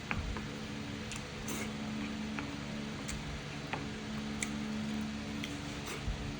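Close-up eating sounds: scattered sharp clicks and small mouth smacks from chewing, over a steady low hum.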